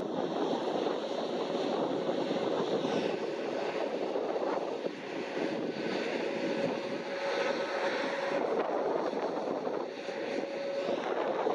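Airbus A320neo's Pratt & Whitney PW1100G geared turbofan engines running at low taxi power as the jet rolls slowly past, a steady engine hum with a held tone through it.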